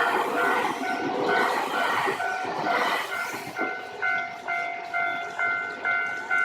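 Japanese level-crossing warning bell ringing about twice a second as a train passes; the train's running noise fades about three and a half seconds in, leaving the bell ringing on its own.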